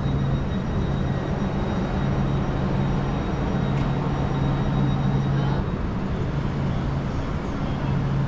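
Passenger train running: a steady rumble with a low hum that drops out briefly every second or so, and a faint high whine that stops about five and a half seconds in.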